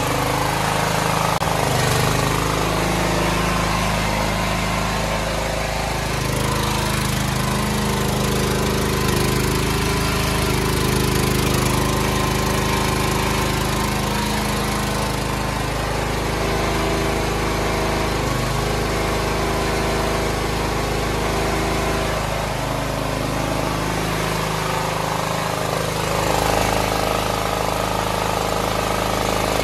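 Small generator engine running at a steady speed, with an even pitched drone and a slight rise and fall in level.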